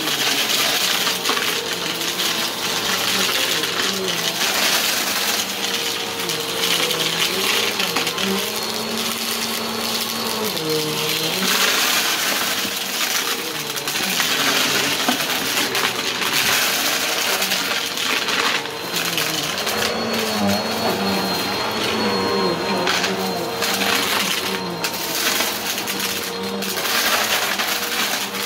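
Bissell upright vacuum cleaner running on carpet, sucking up dry crunchy debris that rattles and crackles up through it into the dust cup. The motor tone wavers up and down as the vacuum is pushed back and forth.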